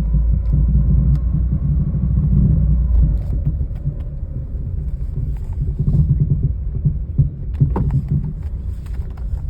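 Car being driven, a steady low rumble with a few sharp knocks and pops, most of them about three quarters of the way through: the low knocking or popping noise that comes with right turns and going straight, its cause not yet known.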